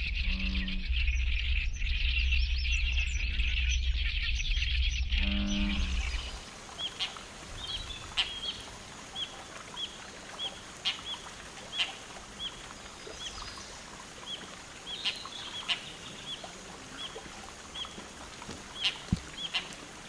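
Outdoor bird sounds in two parts. For about the first six seconds there is a dense high chorus over a low rumble, with a few low, pitched calls. After a sudden change, a short high chirp repeats about one and a half times a second over quieter background.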